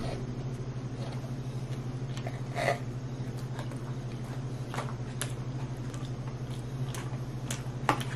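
A person chewing a mouthful of Big Mac, with scattered soft mouth clicks and a few light handling sounds from the cardboard burger box, over a steady low hum.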